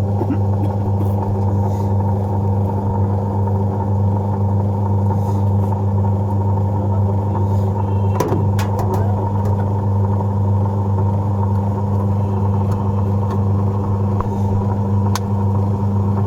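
Samsung top-load washing machine running on its spin cycle with the drum up to speed: a steady motor hum, with a couple of faint clicks.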